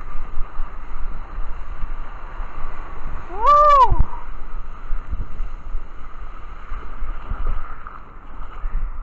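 Water sloshing and splashing against a surfboard paddled through choppy lake water, with wind rumbling on the microphone. About three and a half seconds in comes one short pitched cry that rises and falls in pitch.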